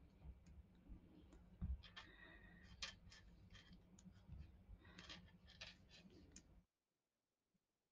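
Faint clicks and taps of metal-tipped circular knitting needles as stitches are worked, in small clusters about two seconds in and again about five seconds in, over a low room hum. The sound cuts off to dead silence about a second before the end.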